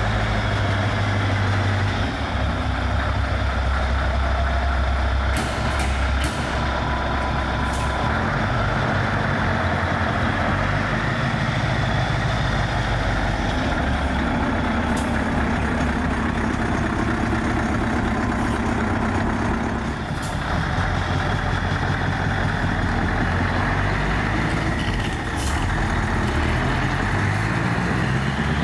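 Scania 143 M 500's 14-litre V8 diesel running as the tractor unit moves off at low speed, its note rising and falling with the throttle, with a few short hisses of compressed air from the air brakes.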